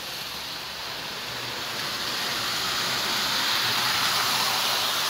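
Marx postwar E7 toy diesel locomotive running fast around the track: a steady whirring rumble of its electric motor, gears and wheels, growing louder over the first few seconds as it comes near.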